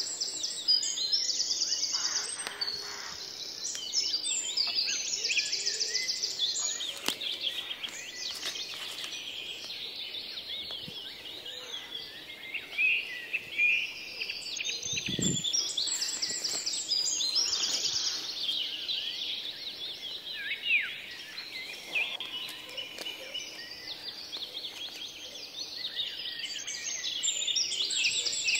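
Forest chorus of birds and insects chirping and trilling in high, rapid pulses, with scattered rustles and crackles of dry leaf litter and one brief low bump about halfway through.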